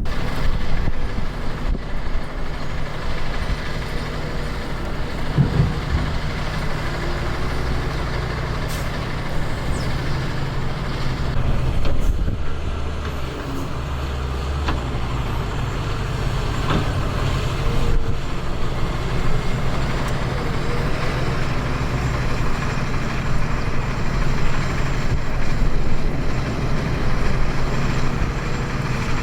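Heavy diesel truck engines running steadily, a low drone whose lowest tone drops away about halfway through.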